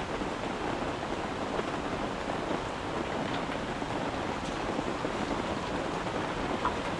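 Steady rain on a tent, heard from inside as an even hiss with a few faint drip ticks.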